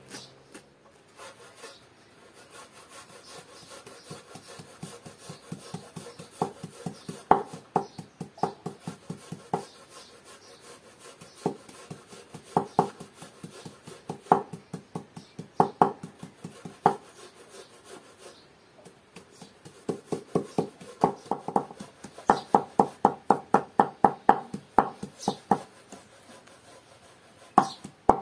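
Large knife chopping fresh herbs on a wooden cutting board, in several runs of quick strikes about five a second, with the softer rasp of a hand grater between them.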